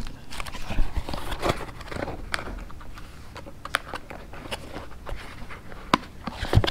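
Small cardboard product box being handled and closed by hand: scattered light knocks, taps and rustles as the lid is shut and a paper sleeve is slid back over it, with a sharper knock near the end.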